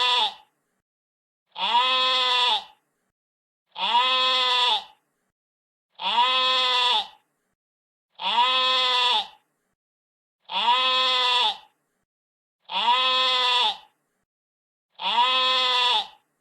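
A sheep bleating: the same call, about a second long, repeated every two seconds or so with silence between.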